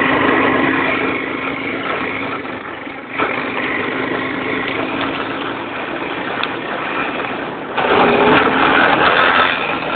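Quad bike (ATV) engine running during a ride on a dirt track, a steady engine note throughout. It gets louder about three seconds in, and louder again with a rushing noise for a stretch near the end.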